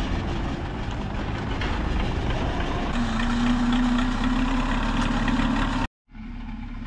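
A tractor engine running steadily, with a steady tone joining the engine sound about three seconds in; the sound cuts off abruptly near the end.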